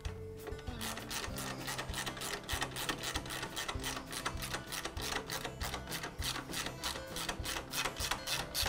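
Socket ratchet wrench clicking rapidly, several clicks a second, as a pump mounting bolt is turned down, starting about a second in, over background music.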